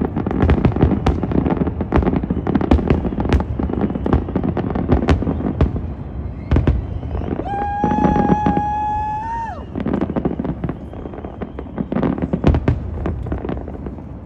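Fireworks display: aerial shells bursting in quick, dense bangs and crackles. About eight seconds in, a steady high tone sounds over them for about two seconds, lifting slightly before it cuts off.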